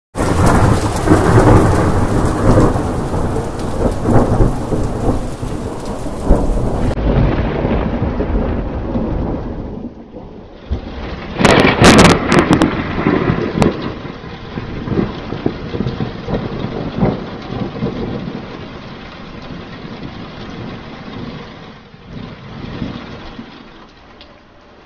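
Thunder: heavy rolling rumbles, then a sharp crack about halfway through, followed by further rumbles that die away toward the end.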